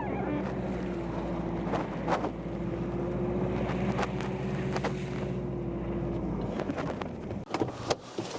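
Camper van engine running steadily, then shut off about two thirds of the way through, followed by a few sharp clicks and knocks.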